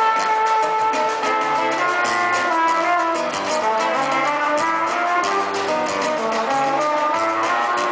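Samba-rock music: a brass section playing held melody lines over a steady percussion beat, with guitar.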